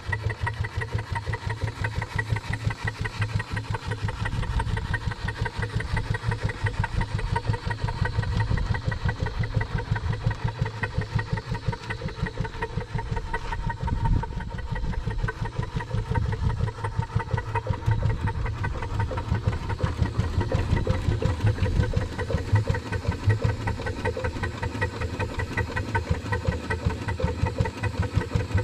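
A 3-inch scale Fowler R3 showman's live-steam engine running on the move, its exhaust beating in a quick, even rhythm.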